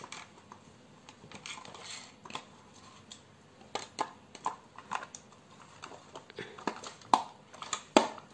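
Hands working a small battery pack and the plastic battery cover on the underside of a toy RC car: irregular plastic clicks and knocks, the sharpest two near the end as the cover is pressed into place.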